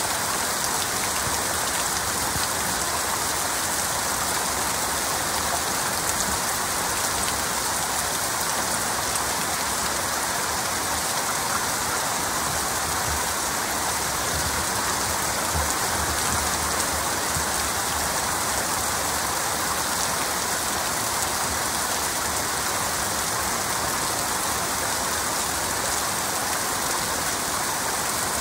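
Heavy rain falling steadily, an even hiss with no thunder or other events standing out.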